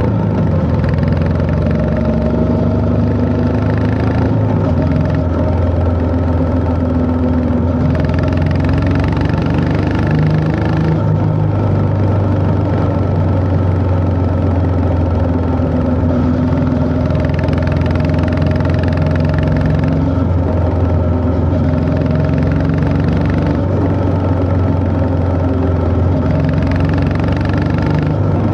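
Honda CB350 H'ness's single-cylinder engine running on the move, its pitch rising and falling as the throttle is opened and eased through corners. The exhaust note turns brighter in stretches of a few seconds, then settles back.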